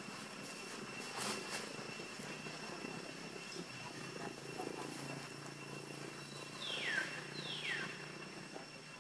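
Forest ambience: a steady high tone and a low distant drone, with two falling whistled calls about seven seconds in, a little over half a second apart.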